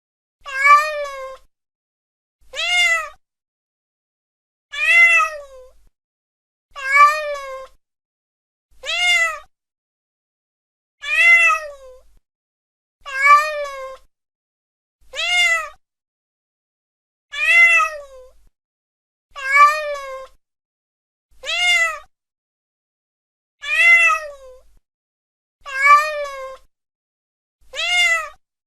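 Domestic cat meowing about fourteen times, one short meow every two seconds. Each meow rises and then falls in pitch, with silence between the calls.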